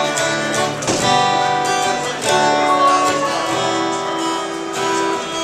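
Acoustic guitar strumming slow chords, each one left to ring before the next.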